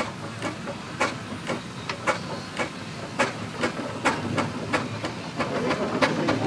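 Steam engine working a winch, with sharp regular knocks about twice a second over a steady hiss of steam.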